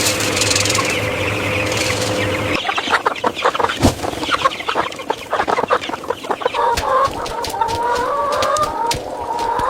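Chickens clucking, with a run of quick short calls and then wavering calls near the end. A steady hum runs under the first couple of seconds and stops abruptly.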